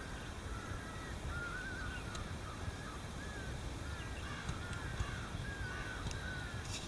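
A flock of birds calling, many short wavering calls overlapping one after another over a steady low rumble.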